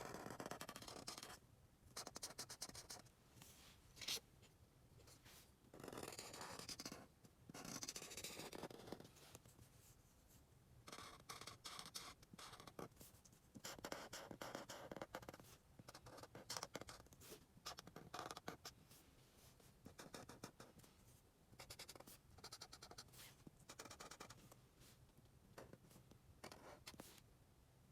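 Faint scratching of a drawing tool on paper, in irregular strokes, some short and some drawn out, with brief pauses between them.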